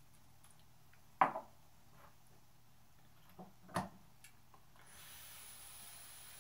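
Two sharp knocks of small items set down on a wooden table, about a second in and again near four seconds, with a few light clicks. From about five seconds in, a steady faint hiss as an e-cigarette with freshly dripped atomizer is drawn on.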